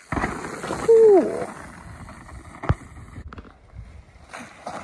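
Mountain bike coming down a muddy trail with a rushing noise of wind and tyres. About a second in there is one short whoop that holds a note and then falls in pitch, and a single sharp knock comes a little later.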